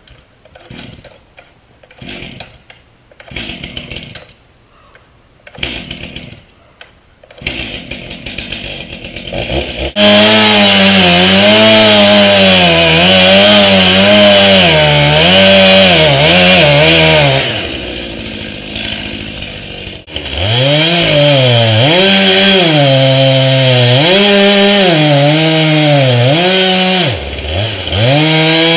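Two-stroke chainsaw cutting into an alder trunk. Its engine pitch sags under load and climbs again over and over, after a few short scattered knocks and rustles at the start.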